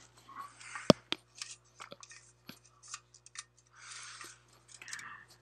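Someone drinking from a tall aluminium can: a sharp click a little under a second in and another just after, scattered small clicks and mouth noises, and two short breathy hisses near the end.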